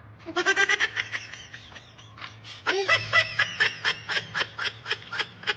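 A person laughing in quick, rhythmic bursts: a short run of high-pitched laughs near the start, then a longer string of laughs at about five a second from around halfway through.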